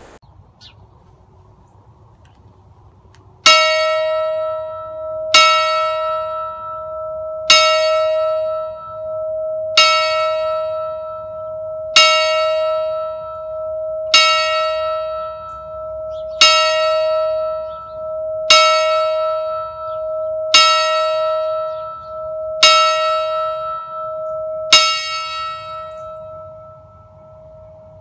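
A church bell on a stand is struck by hand eleven times, tolled slowly at about one stroke every two seconds. Each stroke rings on into the next, and the last one fades away. It is a Remembrance toll.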